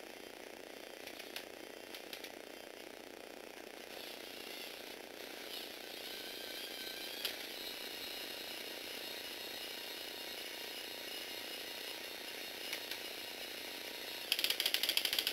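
Lego Technic 8258 boom being driven by its electric motor through plastic gears: a steady faint whir with a thin high whine, a few single clicks, then a loud burst of rapid ratcheting clicks near the end.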